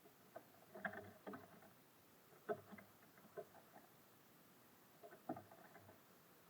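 Small birds at a feeder pecking and hopping: scattered faint taps and knocks in small clusters, the sharpest about a second in, two and a half seconds in, and just after five seconds in.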